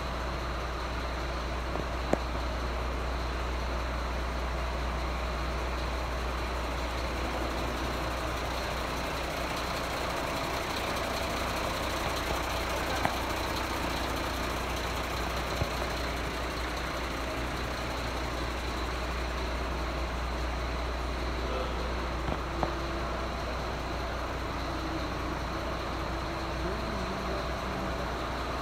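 Water tanker truck's diesel engine idling steadily, with a few sharp clicks here and there.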